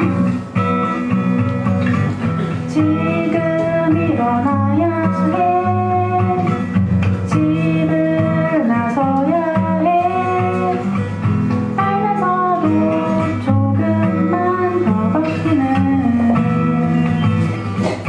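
Live acoustic guitar with a woman singing a ballad-like melody. The guitar plays alone at first, and her voice comes in about three seconds in.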